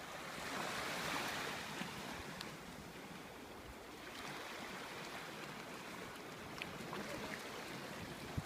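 Sea waves washing onto the shore: a steady surf hiss that swells up and eases off, louder about a second in and again about halfway through.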